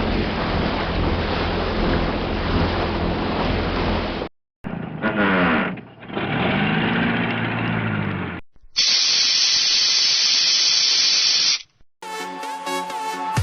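A run of separate sound effects. First, ship's wake and waves with a low engine hum, which stops about four seconds in. Next, a motor turning gears with sweeping, rising and falling tones, for about four seconds. Then a gas valve lets out a steady high hiss for about three seconds, and electronic dance music starts near the end.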